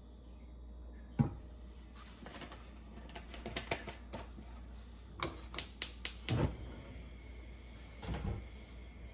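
Gas range burner being lit: the igniter clicks sharply several times in quick succession, about three or four a second, after a single knock about a second in and a few lighter clicks.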